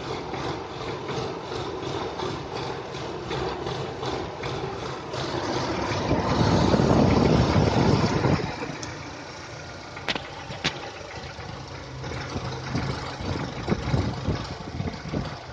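Nissan Almera G15's 1.6-litre K4M petrol engine idling with a regular knock, about three a second, for the first few seconds; the knock is the fault under investigation. The engine sound grows louder for about two seconds in the middle, then settles quieter, with a couple of sharp clicks near the end.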